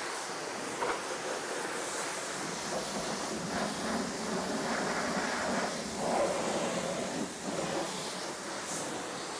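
High-pressure water jet from a self-service car-wash spray wand hitting a car's body and wheel, a continuous hiss and rush that swells and fades as the jet is swept along.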